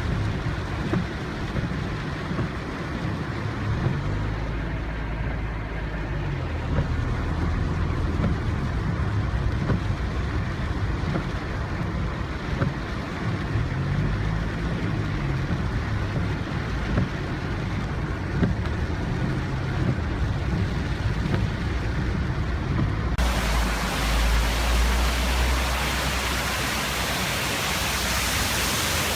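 Car engine and road noise, the engine's pitch rising and falling several times. About 23 seconds in, the sound changes abruptly to a loud, steady hiss.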